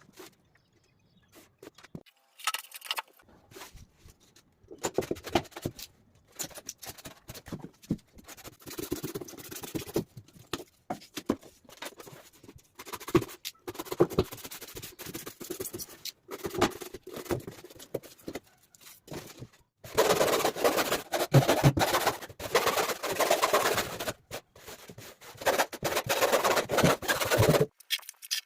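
Irregular scraping, rubbing and tapping from hand work on materials, with a longer, louder stretch of scraping about two-thirds of the way through.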